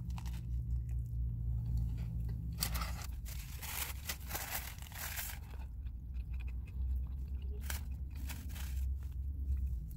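A person biting into and chewing a burger on a sesame seed bun, with irregular crunching and smacking mouth noises, over a steady low hum.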